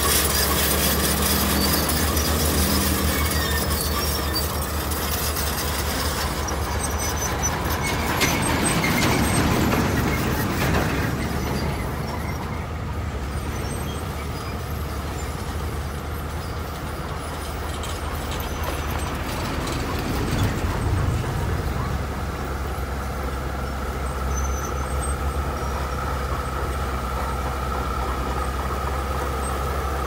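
A heavy construction machine's diesel engine running with a steady low drone, with metallic squealing and clanking strongest over the first few seconds and swelling twice more later on.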